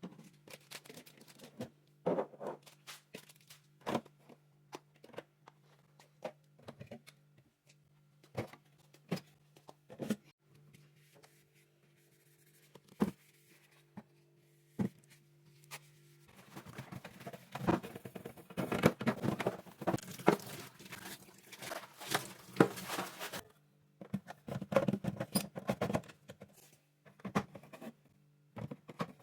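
Fridge cleaning by hand: scattered clicks and knocks of containers and shelves being handled, then about seven seconds of brisk scratchy scrubbing from about 16 seconds in, then more clicks, over a steady low hum.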